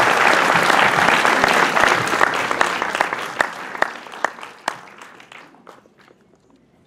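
Audience applauding, dense at first, then thinning to scattered single claps and dying away about five seconds in.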